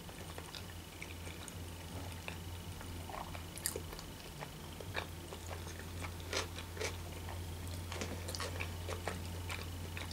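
A person chewing a mouthful of sushi roll with the mouth closed: soft wet smacks and small clicks scattered throughout. A low steady hum runs underneath.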